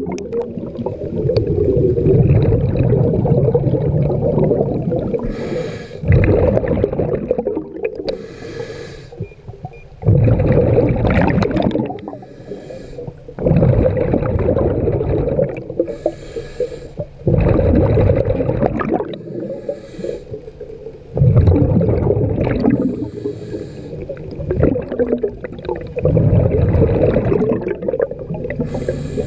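Scuba diver breathing through a regulator underwater: a short hissing inhale followed by a long bubbling exhale, repeating about every four seconds, seven breaths in all.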